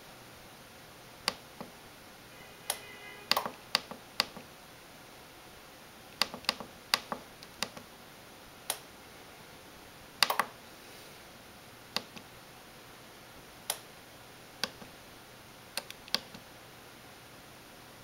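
Plastic push buttons on a Mr. Coffee FTX41CP programmable coffee maker's control panel being pressed. They make a series of sharp clicks at irregular intervals, sometimes two or three in quick succession, as the settings are programmed.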